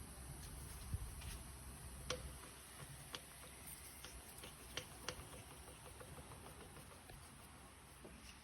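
A few sharp, light clicks and taps, spaced irregularly about a second apart, over a faint low hum.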